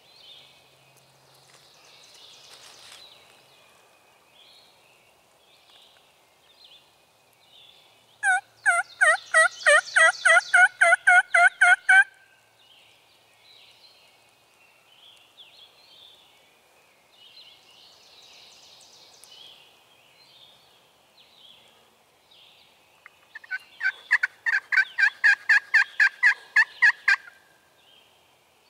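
Turkey yelping: two long runs of evenly spaced yelps, about four a second and about four seconds each, the first about eight seconds in and the second near the end. Faint songbird chirps come in between.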